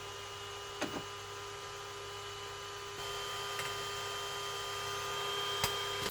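Creality K2 Plus 3D printer running its automatic bed-leveling routine: a steady motor and fan hum with a thin whine. Two light clicks, about a second in and near the end.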